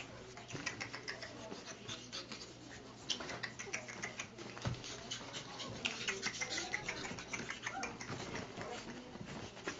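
Pug puppies squirming in a plastic laundry basket: small squeaks and whimpers, with claws scratching and clicking on the plastic.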